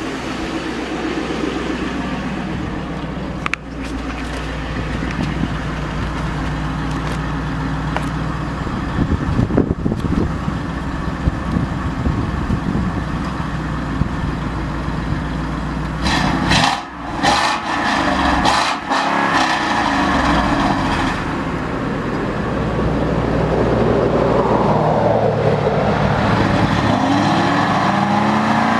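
Exhaust of a 2007 Lincoln Town Car's 4.6-litre V8 with all four catalytic converters cut out, still on its factory mufflers and H-pipe. It runs at a steady idle, then is revved a few times in the second half, getting louder toward the end.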